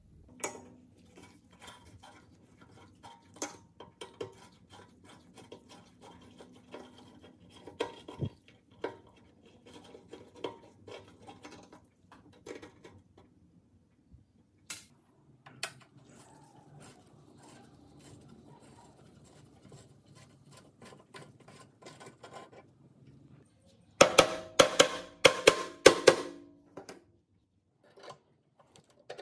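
Screwdriver and loose metal parts on a rusty book-binding machine: scattered small metallic clicks and scrapes as screws are worked out. A burst of loud metal clattering comes near the end.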